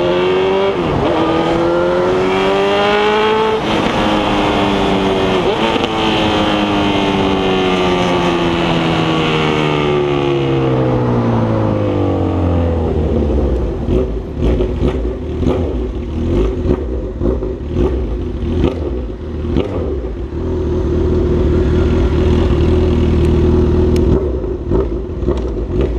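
Honda CB1000R inline-four motorcycle accelerating hard through the gears: the engine note climbs and drops back at each of about three upshifts. It then winds down to a low, steady exhaust rumble with scattered sharp crackles, and starts rising again near the end.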